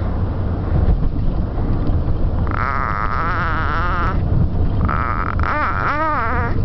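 Baby in a car seat making two long, high-pitched squealing vocalisations that waver up and down in pitch, the first about two and a half seconds in and the second from about five seconds in, over the steady low rumble of the moving car.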